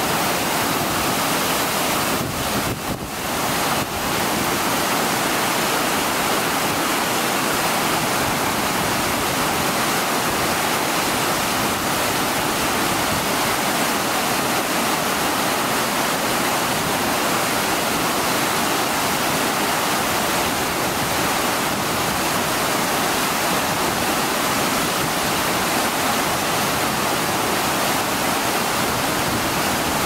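Steady rush of Ōko Falls, a tall, wide waterfall of great volume pouring in several strands down a bare rock face.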